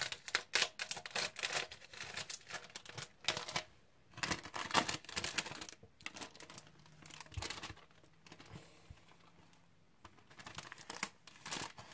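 Clear plastic shrink-wrap being peeled and torn off a sealed Blu-ray mediabook by gloved hands: irregular crinkling and crackling in clusters, dying down for a few seconds past the middle and starting again near the end.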